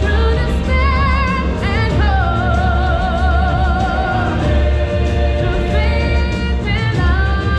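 Loud stage-show music with singers holding long notes with vibrato over a heavy bass, moving to a new note about two seconds in and again near the end.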